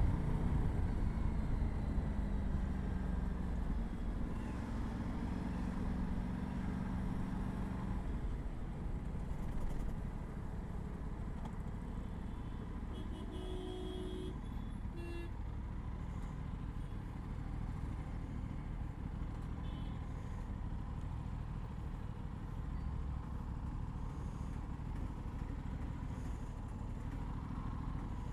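Aprilia RS 457 parallel-twin engine riding through traffic on its stock exhaust: louder at first, its pitch dipping and rising for the first several seconds, then settling into a steadier, quieter run. A horn toots briefly twice about halfway through.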